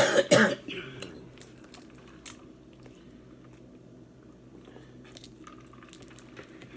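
Close-miked eating of a seafood boil (snow crab, shrimp, corn): chewing and biting with scattered small crunches and clicks. A loud burst comes at the very start.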